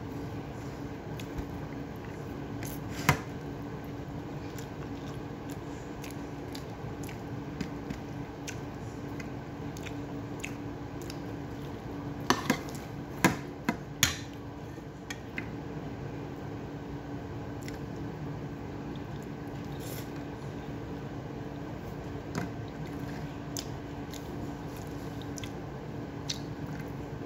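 Eating by hand: soft wet squishing of rice and food worked between the fingers, with chewing and a few sharp clicks, the loudest about 3 s in and a cluster of them around 12 to 14 s, over a steady low hum.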